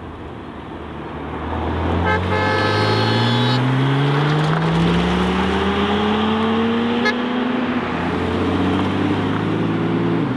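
A sports car's engine accelerating hard, its pitch rising steadily through a gear, with a shift about eight seconds in and another near the end. A car horn sounds for about a second and a half, about two seconds in.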